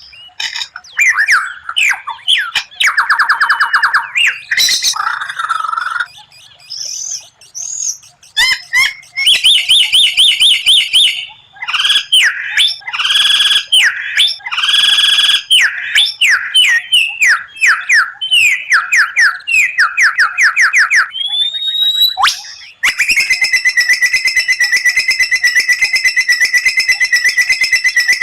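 White-rumped shama (murai batu) singing a varied song of rapid repeated notes, trills and sweeping whistles. It ends in a long, fast, even trill over the last five seconds.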